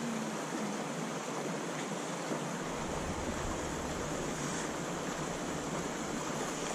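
Shallow creek water rushing over rocks in a riffle: a steady rush of water. A low rumble comes in about two and a half seconds in.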